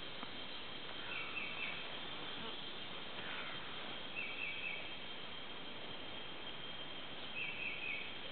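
Tropical forest ambience: a steady high insect drone, with a short call of three quick notes repeating about every three seconds and a single falling whistle near the middle.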